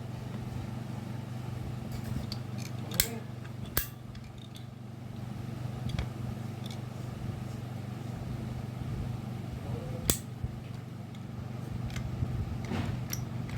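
Ratcheting UPVC pipe cutter biting through a plastic pipe, giving four sharp clicks several seconds apart as its blade is squeezed down stroke by stroke. A steady low hum runs underneath.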